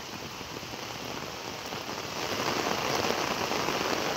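Heavy rain falling on flooded paddy fields, a steady hiss of drops on the water that grows a little louder about two seconds in.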